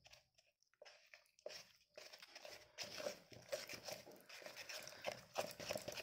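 Plaster of Paris paste being stirred in a plastic bucket: a gritty scraping and crunching, sparse at first and quicker and louder from about halfway through.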